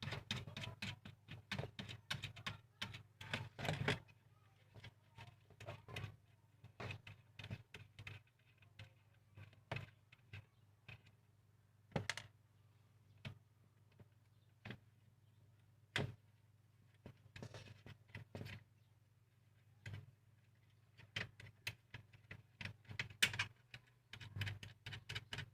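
Light, irregular clicks and taps of small hand tools on a small plastic USB receiver being opened and unscrewed, in quick clusters at the start and near the end and single clicks in between, over a low steady hum.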